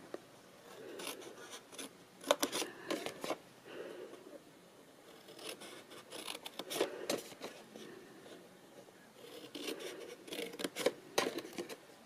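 Small scissors snipping into patterned paper: a series of short snips in groups a few seconds apart, with light paper rustling between.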